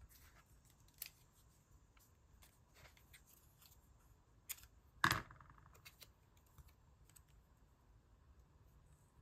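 Scissors snipping through magazine paper in a scatter of short, quiet clicks, with a louder knock about five seconds in.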